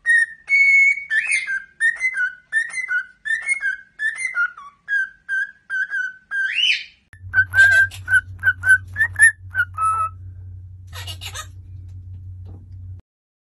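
Cockatiel whistling a tune of short repeated notes, ending in a rising whistle. After a cut, another cockatiel whistles a string of short notes over a steady low hum, followed by a short noisy burst.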